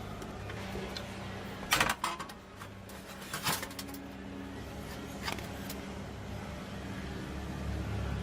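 Two sharp knocks, about a second and a half apart, over a steady low hum.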